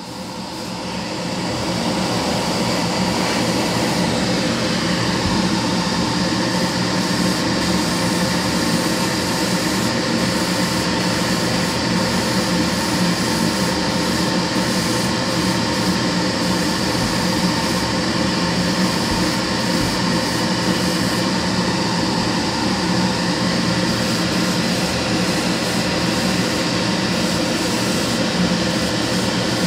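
Airbrush spraying acrylic paint, a steady rushing hiss of air that swells over the first couple of seconds and then holds, over the steady hum of a spray booth extractor fan.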